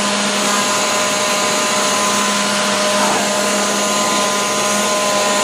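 Ryobi leaf blower running steadily: a constant rush of air over a steady motor whine.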